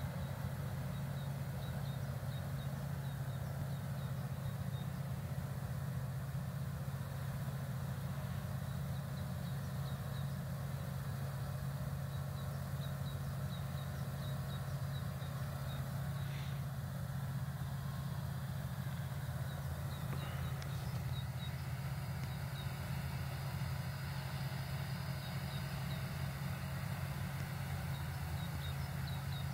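Tractor engine idling, a steady low hum that does not change. Faint short high chirps repeat over it.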